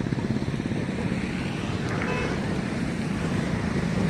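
Wind buffeting the microphone in a steady low flutter, over the faint rumble of a WAP-7 electric-locomotive-hauled passenger train approaching in the distance.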